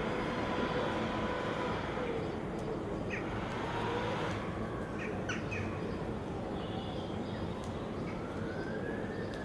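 Town street ambience: a steady hiss of traffic with a few short bird chirps in the middle, and an emergency-vehicle siren wailing, its pitch rising and falling near the end.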